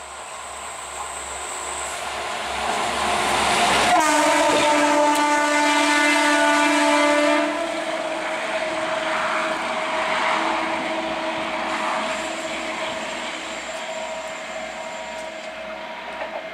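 Railway overhead-equipment inspection car approaching on the line, its running noise growing louder. About four seconds in, its horn sounds one long blast of about three and a half seconds, and a fainter steady tone continues as it comes on.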